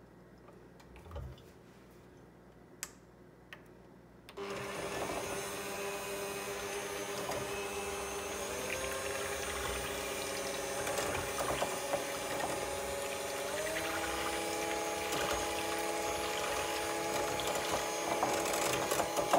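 Cuisinart cordless 5-speed hand mixer whisking whipping cream in a glass bowl: after a few faint clicks, the motor starts about four seconds in with a steady hum, then steps up in pitch twice as the speed is raised, around eight and thirteen seconds in.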